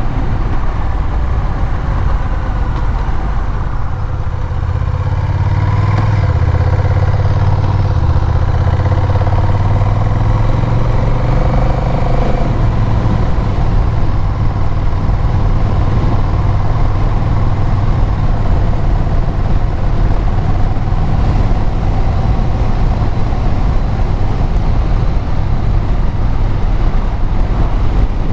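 Vehicle engine and exhaust running under way, with road noise. About five seconds in the engine gets louder and its note climbs, then it settles back a few seconds later and runs on steadily.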